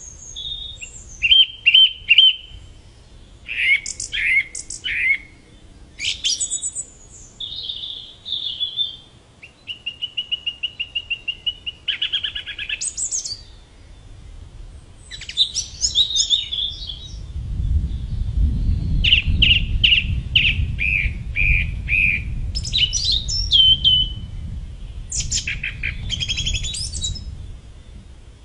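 Song thrush singing: a string of short, varied phrases with pauses between them, several made of one note repeated quickly, including a rapid ticking run. A low rumble sits beneath the song from about halfway on.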